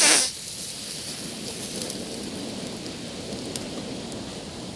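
Open wood fire crackling and sizzling under a whole goat roasting on a spit, a steady hiss with a few scattered pops. A short, louder hiss right at the start as the marinade brush is drawn over the hot meat.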